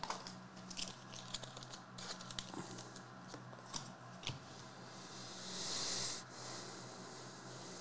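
Trading cards and their packaging being handled: light clicks and rustles, then a scraping hiss lasting about a second, like a card sliding out against plastic, about five seconds in. A faint steady electrical hum runs underneath.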